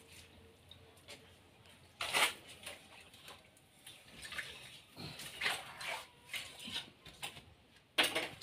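A floor being washed: short bursts of water splashing and wet scrubbing, the loudest about two, five and eight seconds in.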